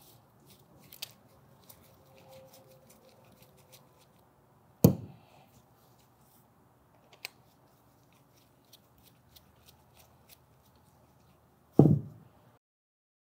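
Small metal clicks and scrapes as a nut driver turns a small fitting out of a Graco Fusion PC spray foam gun's fluid head, with two sharp knocks, about five and twelve seconds in.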